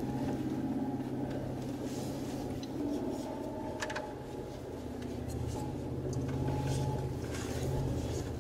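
Mercedes-Benz G500's twin-turbo V8 and tyres heard from inside the cabin while driving on a rough track: a steady low engine hum with scattered clicks and rattles.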